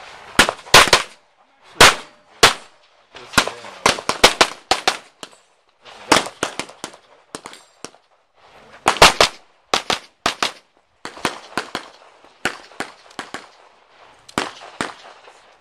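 Handgun fired in rapid pairs and short strings during a practical shooting stage, with brief pauses between groups of shots as the shooter moves to new targets.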